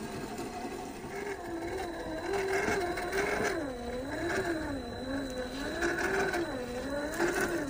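Electric drivetrain of a 1/10-scale RC rock crawler (MST CFX-W with a 550 brushed motor) whining as it crawls over rock, its pitch rising and falling about once a second with the throttle.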